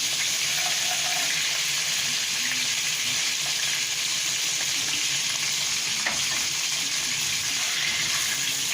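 Sliced garlic sizzling in hot olive oil in a frying pan: a steady frying hiss, with a light click about six seconds in.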